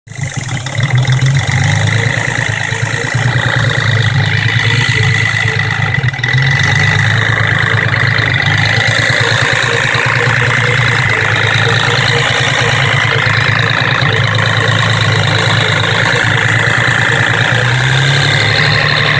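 1991 Nissan 300ZX (Z32) non-turbo 3.0 V6 engine running steadily with a rattling noise that the owner cannot explain: oil pressure is fine, and the noise has been coming more often as the car turns lazy.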